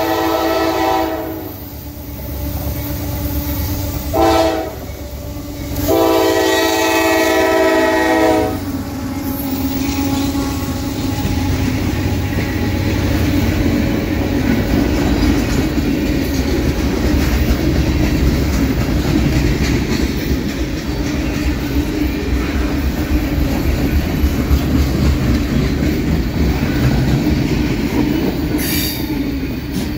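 The K5LA air horn on a GE CM44AH locomotive, CSX 7001, sounding as it approaches: one blast ends about a second in, a short toot comes about four seconds in, and a long blast ends about eight seconds in. The freight train then passes close by, a steady loud rumble of the locomotive and boxcar wheels on the rails.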